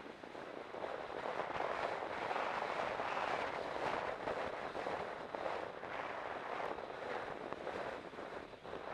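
Wind rushing and buffeting over a helmet camera on a galloping horse, with the horse's hoofbeats knocking irregularly underneath.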